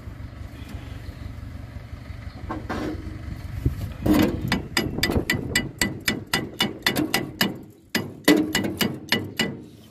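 Steady low hum, then from about four seconds in a quick run of hammer blows on ringing steel, roughly three to four strikes a second, as a part of the John Deere 346 baler's knotter drive is tapped into place.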